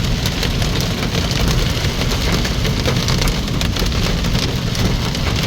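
Heavy rain and hail drumming on the roof of a moving car, heard from inside the cabin as a dense patter of sharp ticks over the low rumble of the car on the road.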